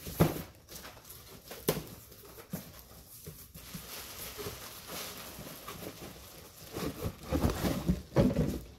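Cardboard box being handled and opened: a couple of sharp knocks of the box, then scraping and rustling. Near the end a boat seat in a clear plastic bag is lifted out, and the bag crinkles louder.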